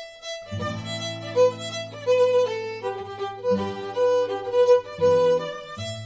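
Background music: a fiddle playing a tune over long held low notes.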